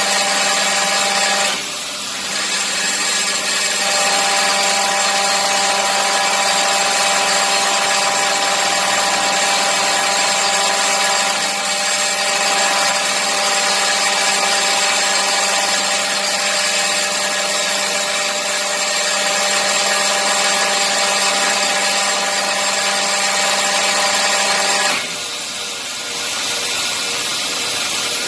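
Hydraulic pump running with a steady whine and hum, the strange noise a hydraulic pump makes when something is wrong. Twice it briefly drops in level and its tone changes: about two seconds in, and again near the end.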